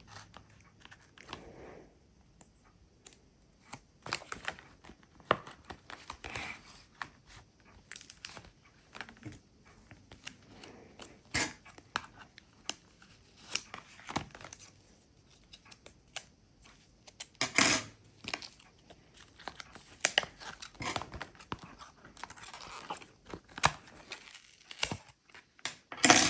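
Paper pieces of a homemade quiet book being handled: scattered, irregular rustles, taps and tearing-like sounds of paper, with a louder rustle about two-thirds of the way through.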